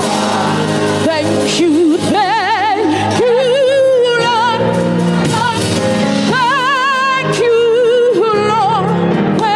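Gospel worship song: a singer holding long notes with wide vibrato over steady, sustained chords of the accompaniment.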